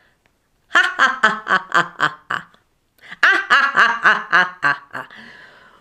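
A woman laughing in two bursts of quick 'ha-ha-ha' pulses, the second trailing off into a breathy tail near the end. It is a deliberately exaggerated, put-on laugh, which she calls terrible.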